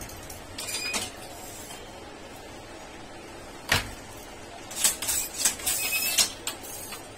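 Wooden handloom being worked by hand while weaving a Banarasi silk saree: a single sharp wooden knock a little under four seconds in, with short bursts of rattling, scraping clatter from the loom's moving parts about a second in and again from about five seconds in.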